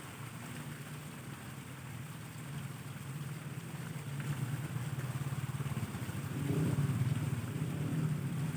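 An engine running steadily, growing louder through the second half as it comes closer or works harder.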